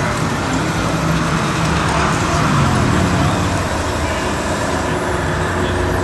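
Steady engine noise running at an even level, its pitch rising and falling slightly around the middle.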